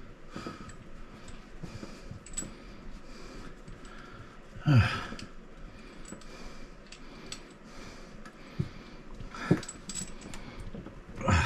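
Small clicks and clinks of a bidet's water-line fittings being handled and hand-tightened, with a few breaths or grunts, the loudest about halfway through.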